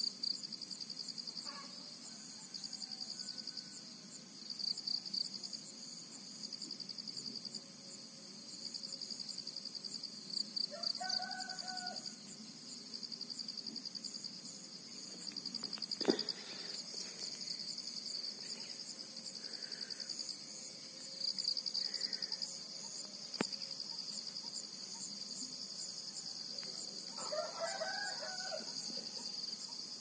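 A steady, high-pitched, pulsing insect chorus, with a rooster crowing twice, once about a third of the way in and again near the end. There is one sharp click about halfway through.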